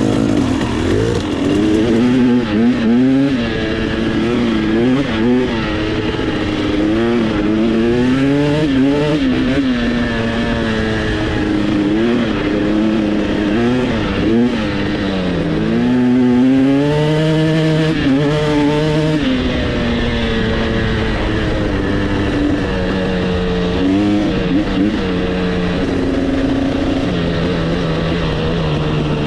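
KTM 300 EXC two-stroke enduro motorcycle engine under way, its pitch climbing and dropping again and again as the rider accelerates and shifts, with one longer climb past the middle and steadier running in the last third.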